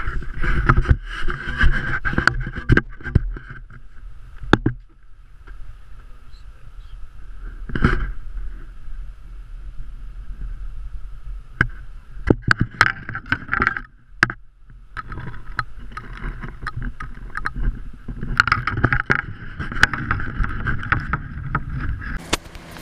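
Footsteps and knocks on a wooden trail staircase, with clothing and camera rustle close to the microphone; irregular, with short pauses about five and fourteen seconds in.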